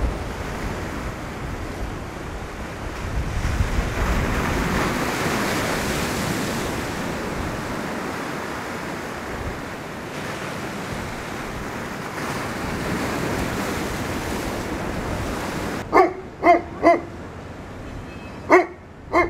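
Sea surf and wind noise on the microphone, swelling and ebbing. Near the end the surf gives way to five short, sharp calls in quick succession.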